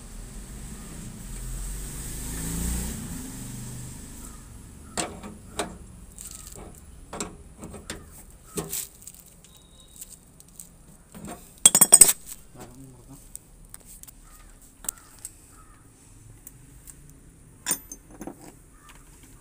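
Metal clicks and clinks of a hand tool and brass fittings being worked at an air conditioner outdoor unit's service valve. There are scattered single clicks, then a loud rattle of several clinks together about twelve seconds in. A brief rushing hiss comes near the start.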